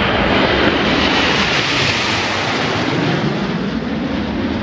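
Jet noise from Aermacchi MB-339 jet trainers flying past, a rushing roar that swells to its loudest about two seconds in and then eases off.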